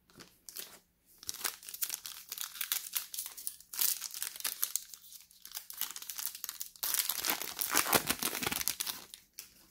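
Foil wrapper of a Panini Contenders football card pack crinkling and tearing as it is ripped open by hand. The crinkling is loudest in the last couple of seconds as the wrapper is peeled apart.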